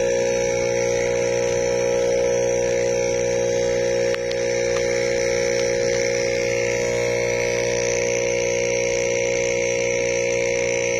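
Aquarium air pump humming steadily, with a hiss of air and water from the air stone.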